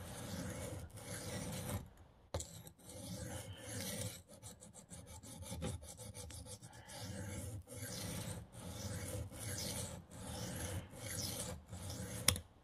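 A knife blade is stroked across a coarse sharpening stone, a gritty rasp in repeated strokes of about a second each, as the edge is worked flat. A sharp knock comes near the end.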